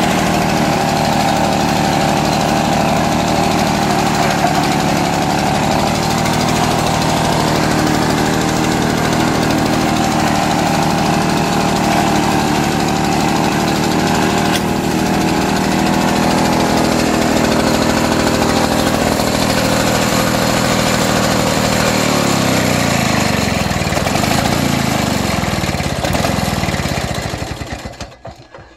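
Victa Cortina 2 rotary mower's 125cc two-stroke engine running steadily. About 22 seconds in its note sinks as the engine winds down, and it stops just before the end.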